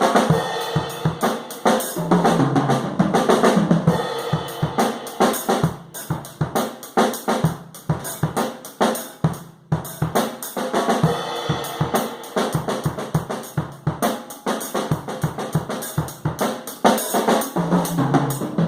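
Nagano Garage Fusion 20 acoustic drum kit played in a continuous groove of bass drum, snare and cymbals, picked up as room sound rather than close-miked. There are busier low-pitched passages about two seconds in and again near the end.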